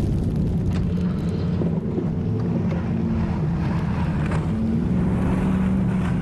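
2019 Chevy 2500 pickup's engine running under way, a steady low drone that rises a little in pitch about two-thirds of the way through.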